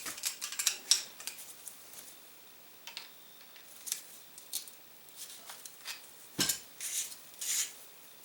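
Small metal parts of a .22 suppressor clicking and clinking as they are handled on the bench. A quick run of clicks comes in the first second, then scattered single clicks, the loudest a little past six seconds in.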